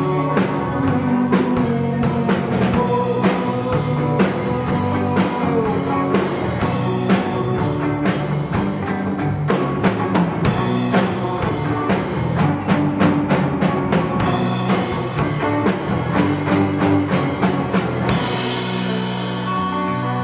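A live rock band playing on drum kit, electric bass and electric guitars. Near the end the drumming stops and held guitar chords ring on.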